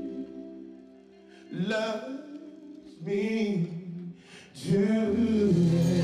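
A slow love song playing: a singing voice comes in with three drawn-out, gliding phrases over held chords, after the chords fade to a quiet dip about a second in.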